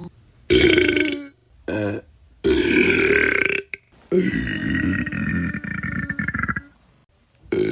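A person burping four times in a row with short silent gaps: a short burp, a very short one, a longer one, then a long drawn-out burp of about two and a half seconds.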